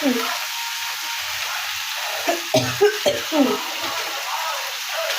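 Food frying in hot oil in a pan, a steady sizzle, with brief voice sounds about halfway through.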